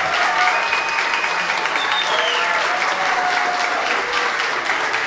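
Audience applauding steadily, with voices heard over the clapping.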